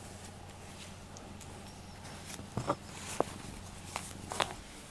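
Close handling sounds of fingers scratching a cat's chin and head: soft rubbing with a few sharp clicks and scrapes in the second half, over a steady low hum.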